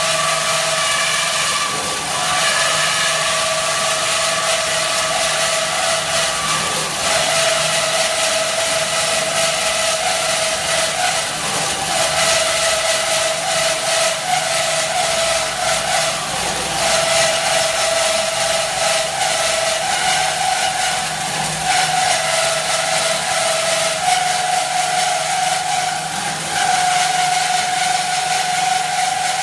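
IMET KS-1202 NC metal-cutting band saw running: a steady whine over a dense high hiss. The whine breaks briefly and shifts slightly in pitch several times.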